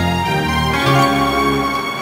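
Background music: held notes over a moving bass line, the low notes stopping near the end.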